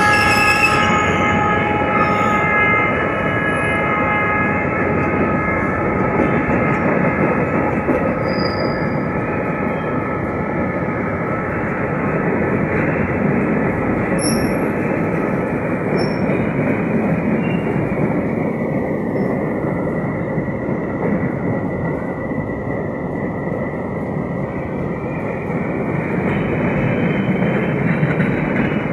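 Freight train of tank cars and open gondola wagons rolling past at close range: a steady rumble and clatter of steel wheels on the rails. The end of a locomotive horn blast fades out in the first second.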